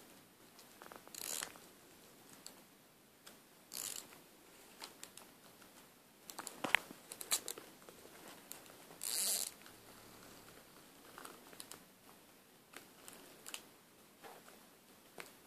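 Pull-string vibrating cat toy mouse being worked by a dog: quiet zipping and ratcheting as the string is pulled out, three times more loudly, with a faint buzzing from the toy and rustling bedding between.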